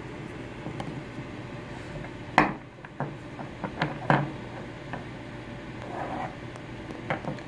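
A few light knocks and clicks of parts being handled on a tabletop: the white plastic seal-installation push tool and sleeve lifted off and set down, and the brass rod end cap picked up. The sharpest knock comes about two and a half seconds in, over a faint steady hum.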